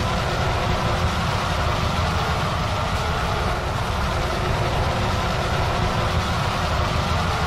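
Steady, loud rumbling noise with a heavy low end and no clear notes or beat.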